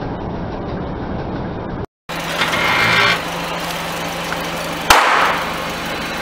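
Car engine idling as the tyre rolls slowly over objects on concrete; about five seconds in, an inflatable flamingo pool ring bursts under the tyre with a sharp, loud pop followed by a short rush of escaping air.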